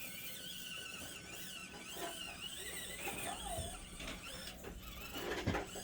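Axial SCX24 micro crawler's small electric motor and gear train whining, the pitch wavering up and down as the throttle is worked.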